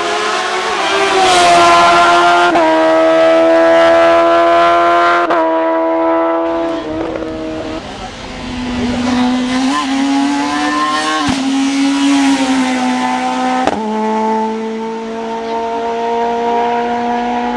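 Hill-climb racing car engine at full throttle, its pitch rising steadily between sharp gear changes every two to three seconds.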